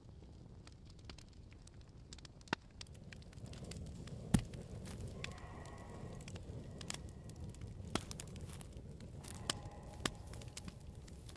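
Quiet dark-forest ambience: scattered small crackles and sharp clicks over a low steady rumble, with one sharper click about four seconds in. Faint held tones come in twice, in the middle and near the end.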